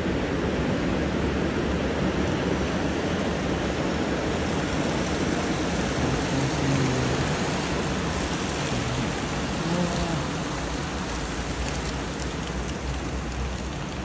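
Rushing, churning noise of a tsunami bore breaking as it surges up a river. The noise is steady and eases slightly after about ten seconds.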